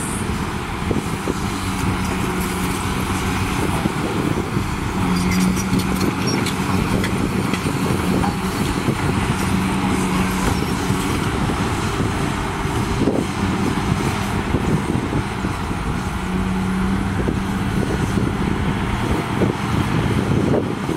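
Diesel engines of a CAT 320D excavator and a tipping dump truck running steadily, with a low hum that swells and fades several times as the excavator works its hydraulics.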